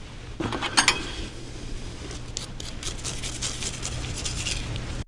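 Scattered light clicks and rattles, loudest about a second in, over a low steady rumble of wind on the microphone.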